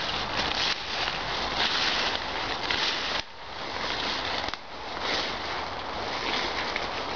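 Continuous rustling and crackling of a person moving through ivy ground cover and undergrowth with a handheld camera, the noise dropping suddenly about three seconds in and again near four and a half seconds.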